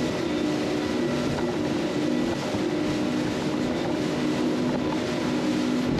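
Twin Mercury Verado 250 hp V8 outboards running steadily at speed, a constant engine drone over the rush of the boat's wake.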